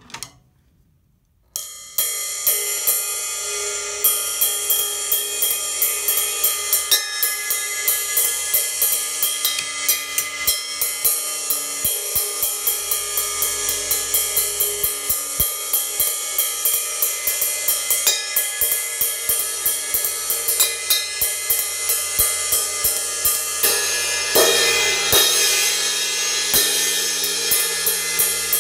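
Paiste PST medium ride cymbal played with a stick in a steady run of strokes, a few a second, each ringing into the last, a little bright with a washy sustain. It starts about a second and a half in and is struck harder, with more wash, in the last few seconds.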